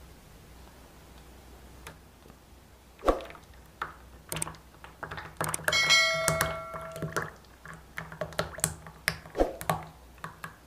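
A silicone spatula clicking and knocking against a glass mixing bowl as chocolate mousse mixture is scraped out and poured into a loaf pan: a sharp knock about three seconds in, then a run of irregular taps, with one strike around the middle leaving a brief ringing tone.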